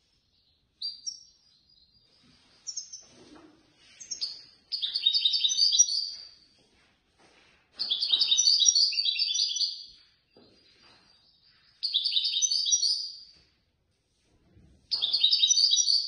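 European goldfinch singing: a few short call notes, then four bursts of rapid, high twittering song, each lasting one and a half to two seconds, with short pauses between them.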